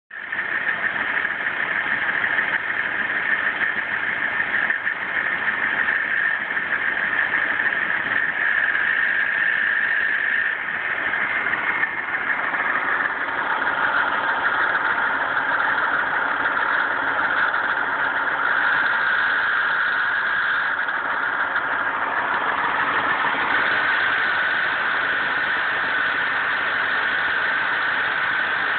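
Vehicle engine running with a steady high-pitched grinding noise over it, the grinding stepping slightly lower in pitch about twelve seconds in. The grinding is most noticeable on a cold start.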